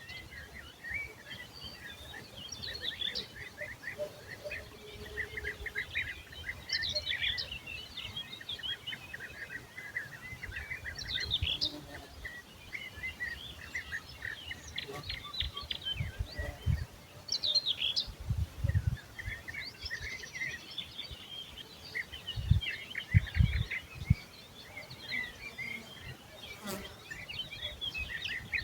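Several birds singing at once, a dense chorus of short chirps and trills. Low rumbles come and go now and then near the middle and later on.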